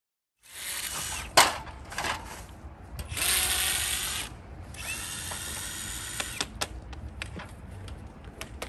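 Hand assembly work on a tunnel of white plastic pipe arches: a run of mechanical clicks and ratcheting, with one loud sharp click about a second and a half in and a louder rasping stretch around three to four seconds in.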